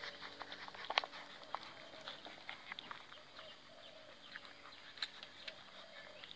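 Puppies suckling at their mother's teats: faint wet smacking and clicking, with a couple of sharper clicks and soft, wavering squeaks.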